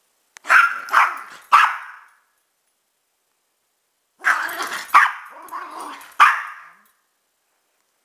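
Dog barking: three quick barks about half a second apart, then after a pause a longer run of barks starting about four seconds in.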